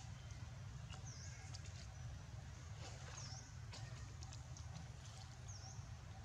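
Faint outdoor ambience: a steady low rumble with three short, high chirps that dip and rise in pitch, about two seconds apart, and a few faint clicks.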